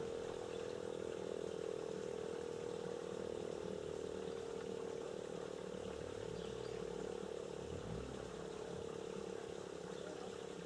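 DS977 electromechanical civil-defence siren sounding a steady, even tone for the 'Probe' test signal, its pitch held constant and its loudness easing slightly.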